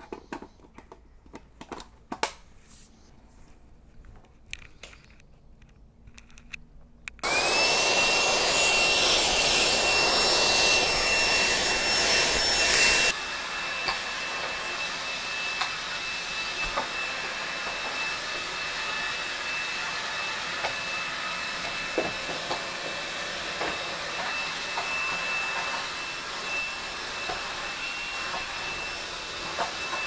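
Dreame V10 cordless stick vacuum switched on about seven seconds in, its motor spinning up with a rising whine and then running loud. Some six seconds later the rush drops to a lower, steady level with the high whine still on, with occasional light knocks. Before it starts there are only a few faint clicks.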